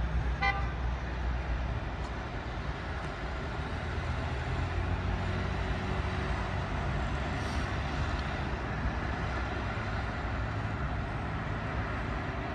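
City road traffic: cars passing through an intersection with a steady low rumble. A short, high-pitched toot sounds about half a second in.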